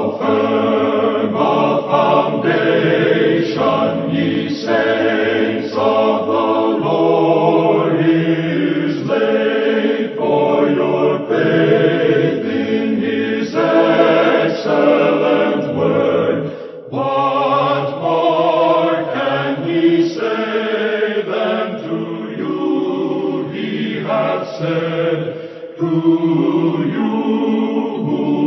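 A choir singing a hymn, several voice parts holding chords that change about once a second, with a short break in the singing near the middle.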